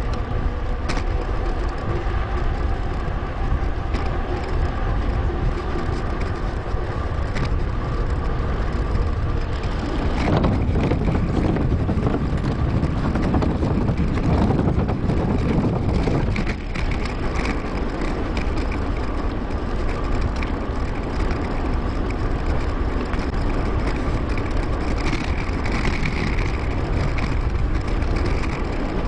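Steady wind and tyre noise from a mountain bike ride, picked up by an action camera and played back at 2.5 times speed. A louder rumble runs for several seconds in the middle.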